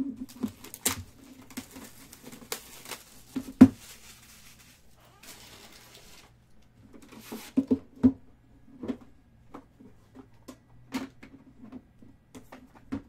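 Packaging of a Panini Immaculate Collection box being handled and opened: the cardboard outer box slid off and the red metal tin and the card box inside set down and moved about. Scattered taps, knocks and rubbing, the loudest knock a little over three seconds in and a quick cluster of them around eight seconds.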